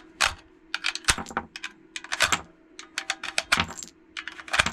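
Cartridges being pushed one after another out of an AR-15/M4 magazine with the tip of a loose round. Each round clicks against the magazine's feed lips as it slides free, in a quick, irregular run of sharp metallic clicks.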